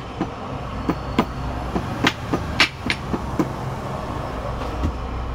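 Sharp metal taps as a long tool is knocked down onto the oil seal in a Bajaj engine's aluminium side cover to seat it: several taps through the first three and a half seconds, over a steady low hum.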